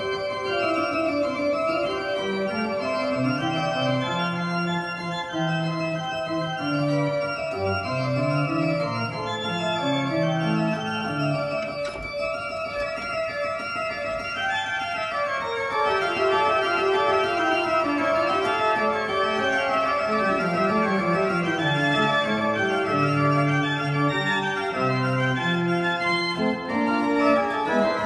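1822 Carle Walpen pipe organ being played: several voices move in counterpoint beneath a long-held upper note. It grows somewhat louder about halfway through.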